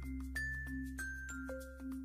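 Background music: a light tune of short, bell-like mallet notes over a held low bass.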